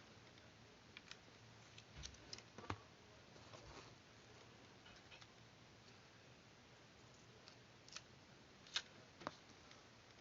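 Faint, scattered snips and clicks of scissors cutting paper: a few around two to four seconds in and a sharper few near the end, the loudest about nine seconds in.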